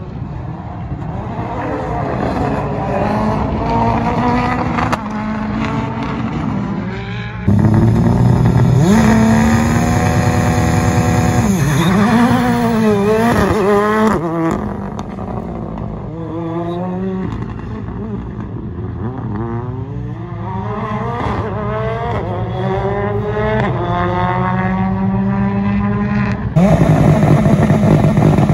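Rally car engines accelerating hard from a standing start, the pitch climbing again and again as they shift up through the gears and at times blipping up and down. The sound changes abruptly three times where separate launches are cut together.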